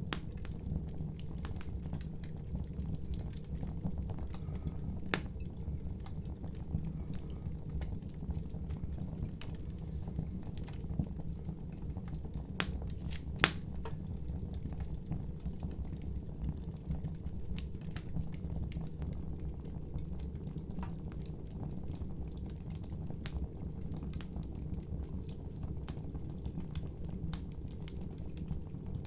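Wood fire burning with a steady low rumble and scattered sharp crackles and pops, one louder pop about halfway through.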